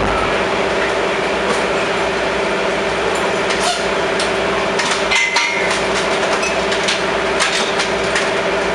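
Metal tools knocking and clanking on a Top Fuel dragster during a pit teardown between rounds, with a steady mechanical hum underneath.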